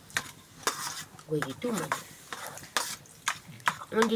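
A cooking utensil stirring and scraping in a pan of sizzling food, with a series of sharp scrapes and knocks against the pan.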